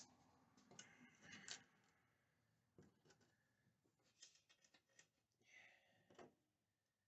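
Near silence, with a few faint scattered clicks and taps of hands handling a metal dash bracket and plastic dash parts.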